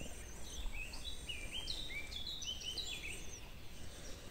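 Small birds chirping: a quick, busy run of short high notes that thins out near the end, over a faint low rumble of wind.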